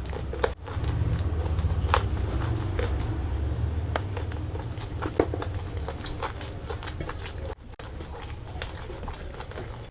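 Close-miked chewing and wet mouth sounds of someone eating chicken curry and rice, with many scattered short clicks over a low rumble. The sound drops out briefly twice, about half a second in and near the three-quarter mark.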